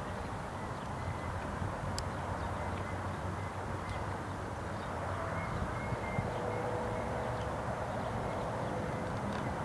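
Distant jet roar of a Boeing 777-300ER's two GE90-115B engines at takeoff thrust as the airliner lifts off and climbs out, a steady rush that grows a little louder about halfway through, with a faint steady whine joining it.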